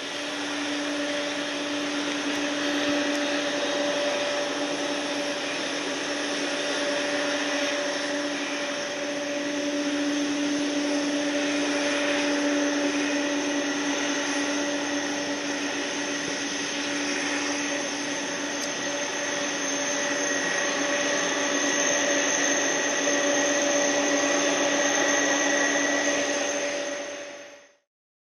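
Jet airliner's engines running with a steady roar and a whine made of several held tones, swelling slightly toward the end before cutting off.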